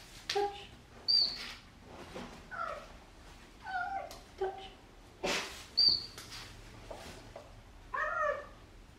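Cheetah giving short chirping calls, about eight in all, two of them sharp, much higher and louder, about a second in and near six seconds.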